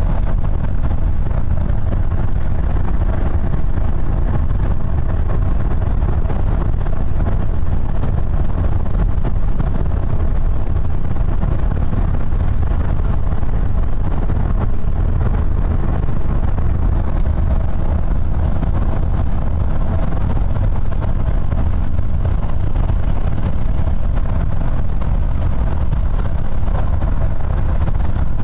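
Gillig transit bus cruising at freeway speed, heard from inside the cabin: a steady, loud low drone of engine and road noise with faint steady tones above it.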